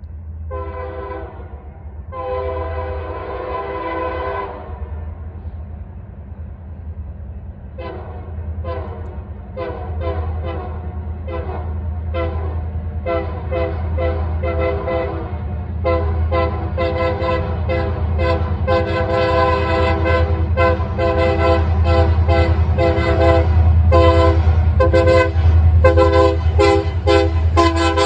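Union Pacific diesel locomotive's air horn played 'Mexican style': a short blast and a longer blast, then a long run of quick staccato toots that come faster and grow louder. The engine's low rumble runs underneath.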